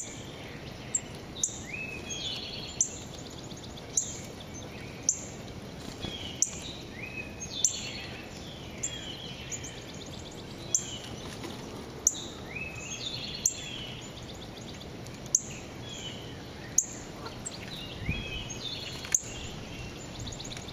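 Songbirds calling and singing: sharp, high notes falling in pitch, about one every second or so, with warbling song phrases between them, over a steady outdoor hiss.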